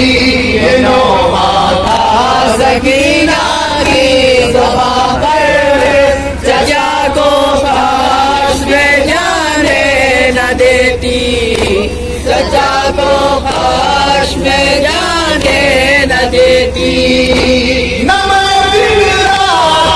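Men chanting a nauha, a Shia Urdu lament, unaccompanied. A lead male voice is amplified through a microphone and loudspeaker, and other men's voices join in.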